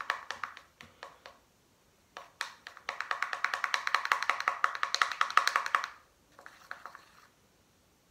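Slime being stirred with a plastic stirrer in a small plastic pot: quick runs of clicks, about nine a second. There is a short run at the start, a longer one from about two seconds in until about six, and a brief one just after.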